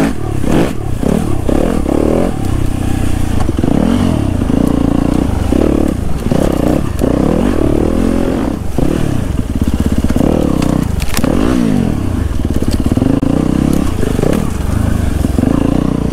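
Yamaha YZ250FX dirt bike's four-stroke single-cylinder engine revving up and dropping back over and over, the throttle worked on and off through a bumpy, whooped-out woods trail. Sharp knocks from the bike come in here and there.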